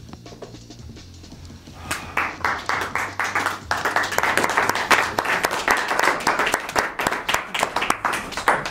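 Low, steady music dies away, and about two seconds in a small group of people starts clapping and keeps up brisk applause.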